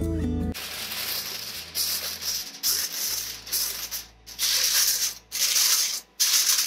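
Aluminium foil crinkling and rustling in a run of short, loud bursts as it is pressed down around the rim of a cooking pot, sealing the pot for dum cooking. Guitar music cuts off about half a second in.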